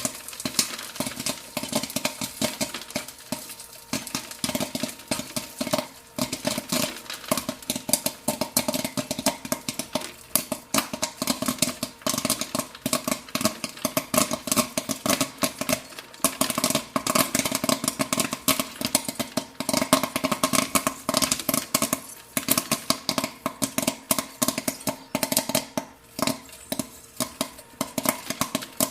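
Popcorn popping: rapid, irregular pops, many a second, over a steady low hum. The popping thins briefly around the fourth to sixth second and again near the end.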